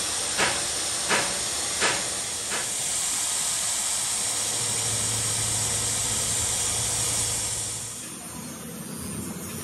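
Tool post grinder on a lathe grinding a spinning steel part: a steady hiss, with a sharp tick about every 0.7 s in the first few seconds. About eight seconds in the grinding stops and a quieter background with a low hum takes over.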